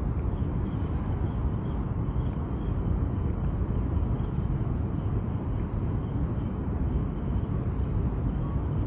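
Steady, high-pitched insect noise in the garden vegetation, holding an even pitch throughout, with a constant low rumble beneath it. From about six and a half seconds a faint, fast pulsing joins it higher up.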